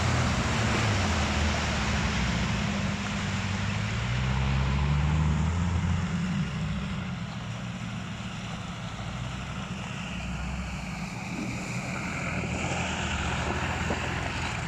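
Land Rover Defender 110's 200Tdi four-cylinder turbo-diesel engine pulling under load off-road. Its note rises and falls over the first six seconds, then settles lower. A steady hiss of splashing mud and water runs under it.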